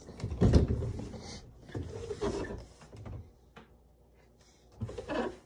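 A closet door being opened: a loud knock about half a second in, followed by scraping and rattling, with another burst of rattling near the end.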